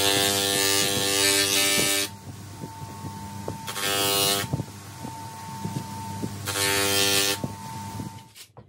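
Bench grinder running a sanding drum on its arbor, with the wooden toe of a cricket bat pressed against the spinning drum three times; each contact gives a loud rasping whine over the steady hum of the motor. The sound fades out near the end.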